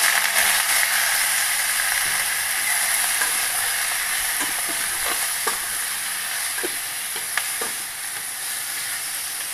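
Raw duck pieces stir-fried in hot oil with fried garlic in a stainless steel pot, giving a steady sizzle that eases slightly. Wooden chopsticks click against the pot a few times from about halfway.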